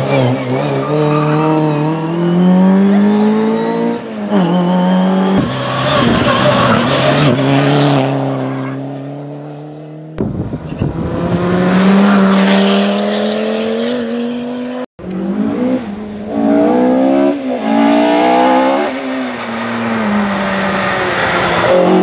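Classic rally cars, Ford Escort Mk2s and an Audi Quattro among them, accelerating hard past one after another. Each engine note climbs as it revs up and drops back at the gear changes. The sound cuts abruptly from one car to the next several times.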